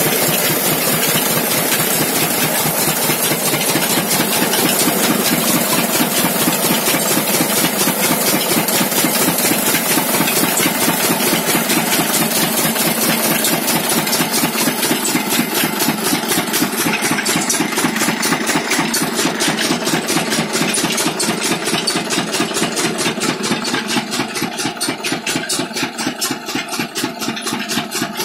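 A single-cylinder stationary engine running steadily with a rapid, even beat, driving a rice huller by belt.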